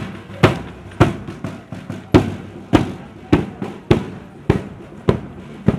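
Marching band percussion playing a steady march beat: the bass drum and hand cymbals strike together about every 0.6 s, with lighter snare drum strokes in between.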